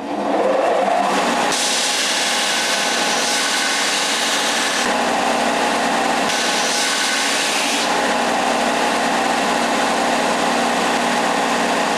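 Porter-Cable belt sander running steadily, with a wooden hand-grip blank pressed against the belt to knock off its square corners. The sanding hiss grows brighter about a second and a half in for some three seconds, and again around six seconds in.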